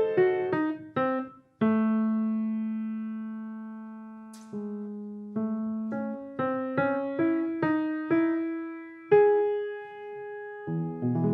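Solo piano played slowly: a few single notes, a brief pause, then one long note left to ring and fade, followed by a rising line of single notes, with low chords coming in near the end.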